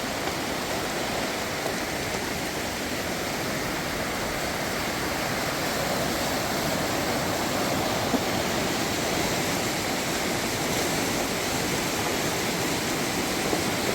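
Swollen stream in flood after heavy rain, fast water rushing with a steady roar.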